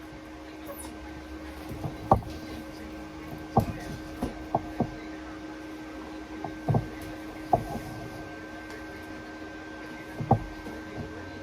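A series of irregular knocks and clunks, about eight in all and bunched in the middle, over a steady low hum.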